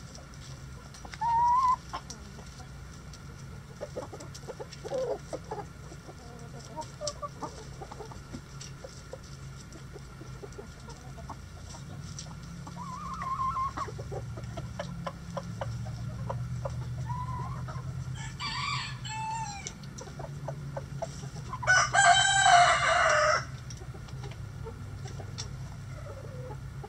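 Backyard chickens clucking now and then while foraging, with scattered faint ticks; a rooster crows loudly once near the end, the loudest sound.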